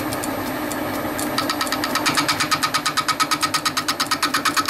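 Metal lathe running steadily while the tool turns the rim of a cast wheel. About a second in, the cut sets up a fast, even scraping pulse, about eight a second, that grows louder.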